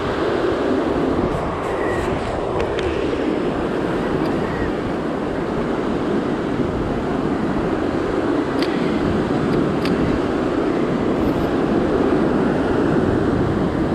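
Ocean surf breaking and washing over rocks, a loud steady rush, with wind gusting on the microphone.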